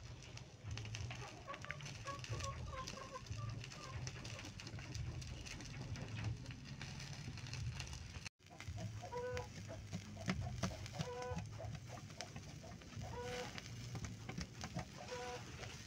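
Chickens clucking in short repeated calls, more often in the second half, over a steady low rumble.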